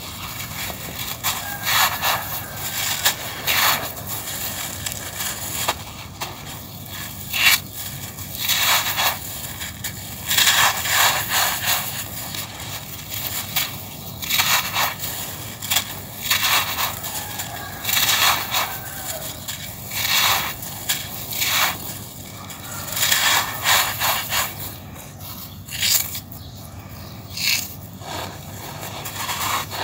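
Dry packed sand clumps crushed and crumbled by hand, gritty crunching in irregular bursts every second or two, with loose grains spilling onto sand.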